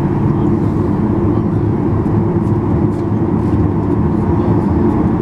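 Steady low rumble inside a Boeing 737-800's cabin as it taxis, its CFM56-7B jet engines running at low thrust.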